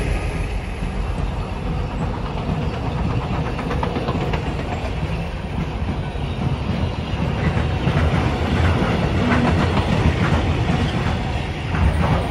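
Freight train wagons, double-deck car carriers among them, rolling past at speed: a steady rumble of wheels on rail, with quick clicks of the wheels over rail joints that grow thicker in the second half.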